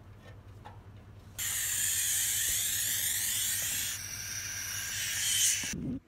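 Barn owl nestlings giving a loud, harsh defensive hiss as they are handled in their hay-bale nest. It starts suddenly about a second and a half in, eases slightly about four seconds in, and cuts off just before the end.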